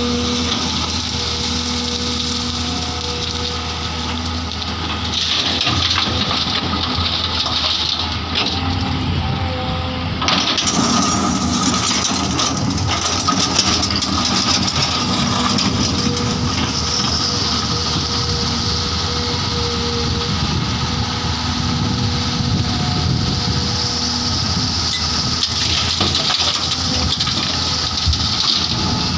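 Diesel engine of heavy earthmoving machinery running steadily at a work site. From about ten seconds in it grows busier and noisier, with clattering, as the machine works.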